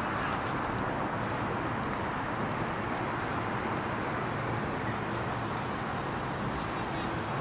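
Steady road traffic noise from cars driving past on the street, an even continuous rush.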